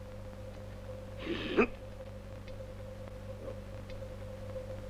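A steady electrical hum with a faint held tone, and one short pitched cry about a second and a half in.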